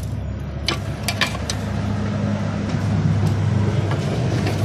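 A steady low engine-like hum, with a few sharp metal clicks as pliers bend back the cut sheet-metal flap of an auto-rickshaw silencer.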